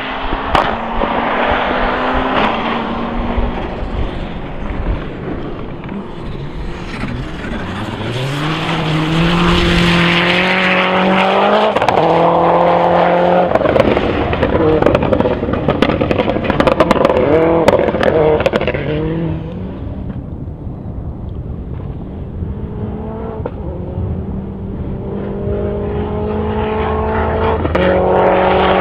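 Suzuki Swift Maxi Class rally car engine running hard on a gravel stage: the pitch climbs through each gear and drops back at the upshifts as the car passes, loudest in the middle. It fades somewhat a little past halfway, then builds again near the end as the car is heard approaching once more.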